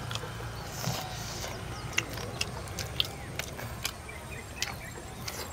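Eating at a table: scattered light clicks and taps of metal spoons and forks against dishes, half a dozen of them, over a low steady hum.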